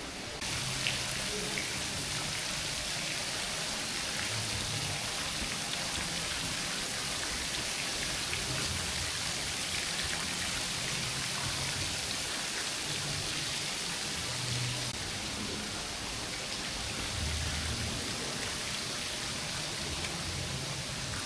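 Steady rain falling: a dense, even hiss with scattered tiny drop ticks, which gets louder about half a second in.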